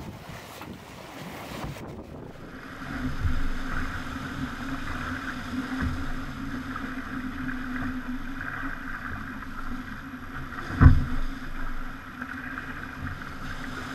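Aboard a Pogo 30 sailing yacht under way: water and wind hiss past the hull, with a steady hum from about two seconds in and one loud knock about eleven seconds in.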